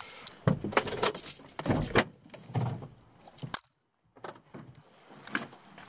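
Handling noise from a handheld camera being moved around inside a van's cab: a run of irregular clicks, knocks and rustles, with a brief dead silence a little past the middle.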